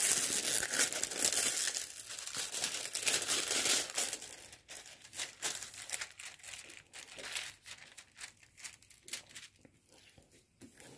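Crinkling and rustling of plastic packaging as a diamond painting canvas is handled, dense for the first four seconds, then thinning to scattered crackles.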